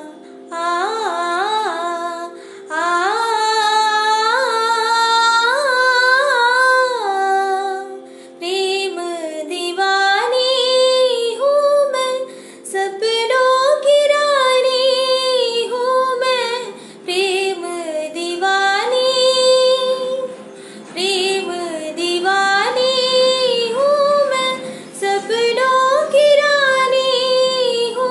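A woman singing a Hindi film song solo, in long ornamented phrases that glide between notes, with short breaks for breath. Steady held backing notes sit under the voice and fade out about two-thirds of the way through.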